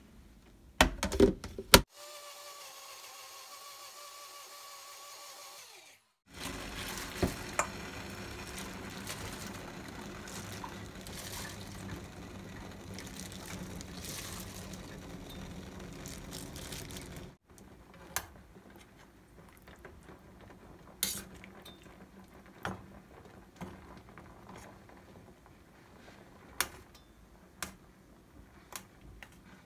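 NutriBullet 900 Series blender: the cup locked onto the base with a few sharp clicks, then the motor running steadily for several seconds. In the last part, scattered clinks of metal tongs against a stainless steel pot.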